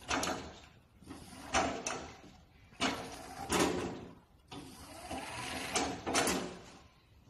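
Semi-electric hand pallet truck being driven and turned in short bursts: its 48 V brushless drive motor and PU drive wheel running, then stopping, several times about a second apart, each burst starting suddenly.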